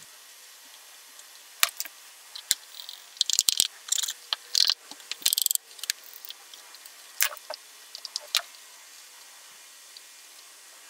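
Scattered short scrapes, rubs and clicks as a wooden belt-slot blank is pressed and worked inside the slot of a moulded leather holster and the holster is handled around its plastic gun mould, busiest in the middle.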